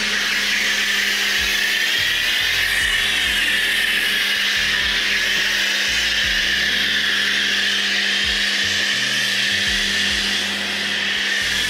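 Pressure washer spraying snow foam through a foam lance onto a car's bodywork: a loud, steady hiss of spray that starts suddenly.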